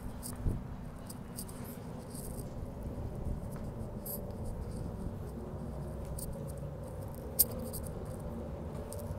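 Steady low street background noise with a faint hum, a few soft clicks and one sharp click about seven seconds in.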